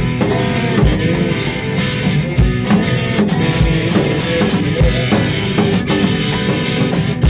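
Improvised garage-rock instrumental: electric guitar playing over a drum kit, with a steady deep beat and a quick run of about six bright, crisp hits in the middle.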